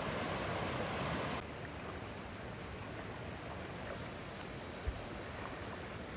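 A mountain stream rushing steadily, an even wash of water noise that drops a little quieter about a second and a half in. A single soft low thump near the end.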